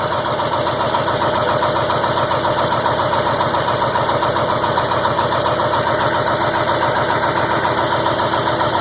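Ford 7.3 Powerstroke V8 turbo-diesel idling steadily with an even, rapid firing clatter, still cold just after a hard start that took about eight and a half minutes of cranking.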